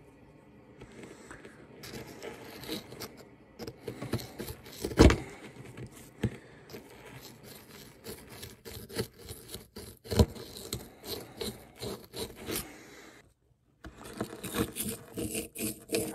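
Small hand digging tool scraping and picking at a gem dig-kit block, in uneven short strokes, with two sharper knocks about five and ten seconds in.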